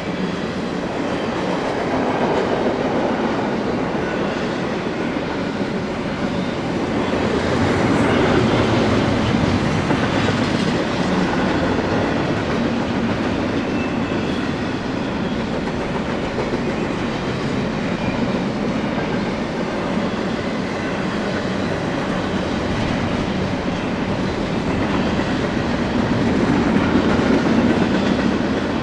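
BNSF freight train rolling past, a continuous noise of wheels on rail that swells twice.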